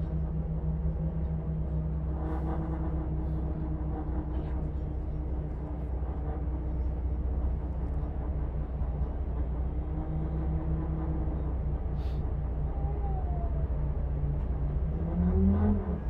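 Volvo engine heard close to its radiator, running steadily with a low hum. Near the end it picks up revs and the pitch rises.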